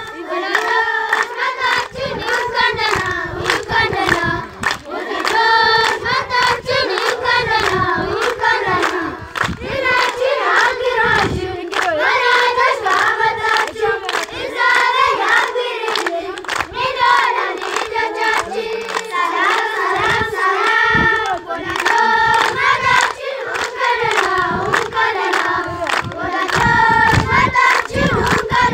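A group of children singing an Amharic welcome song together ("welcome guests, welcome guests", "peace, peace, peace") while clapping their hands in time.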